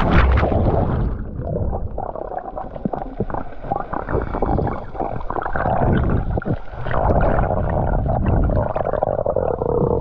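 Camera microphone plunged into the sea: a splash as it goes under, then muffled underwater sloshing and rumbling of the surf with many small crackles and clicks.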